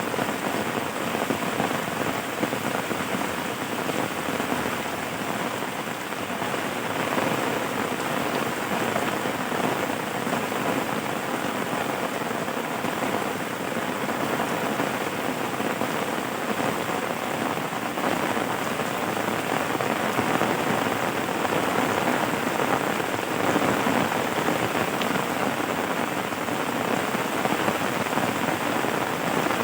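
Steady rain falling and pattering on a surface, an even hiss of many drops.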